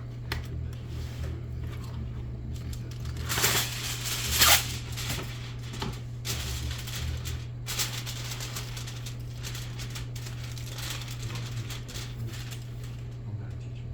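Aluminium foil being crinkled and pressed over a baking dish, in rustling bursts that are loudest a few seconds in, over a steady low hum.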